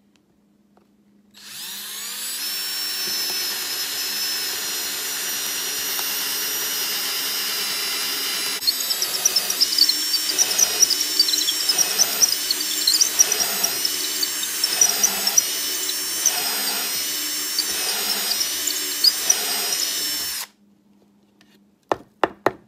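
Electric drill fitted with a countersink drill bit, spinning up about a second and a half in and running with a steady high whine. About halfway through, the whine begins to waver and pulse roughly one and a half times a second. The drill stops abruptly near the end, followed by a few sharp clicks.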